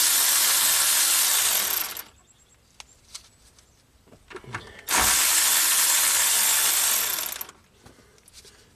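A handheld power driver runs twice, about two and a half seconds each time, spinning nuts off the bus bar terminals of a hybrid car's high-voltage battery pack.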